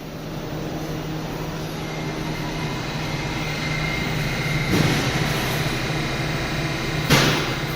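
R68A subway train at the platform, a steady electrical and mechanical hum that slowly grows louder, with two brief bursts of noise about five and seven seconds in.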